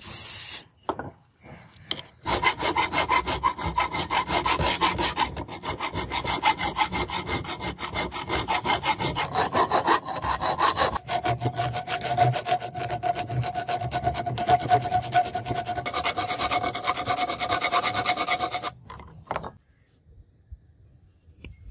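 Flat hand file rasping along the edge of a steel knife blank cut from a leaf spring and clamped in a vise, in fast, even strokes that start about two seconds in and stop shortly before the end. A steady whine sits under the strokes and drops in pitch about halfway through.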